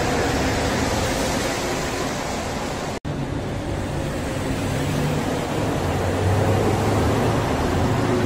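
Rubber-tyred metro trains moving along a station platform: a steady rush of tyres and motors, cut off abruptly about three seconds in. After the cut a second train is heard, its low motor hum growing louder near the end.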